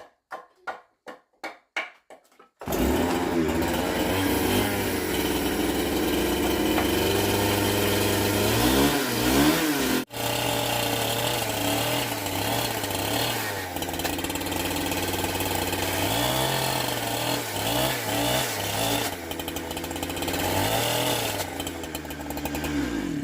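Chainsaw running loudly and cutting wood, its engine pitch dipping and recovering several times as it takes the load. A run of short rhythmic strokes comes first, and the sound cuts out for a moment near the middle.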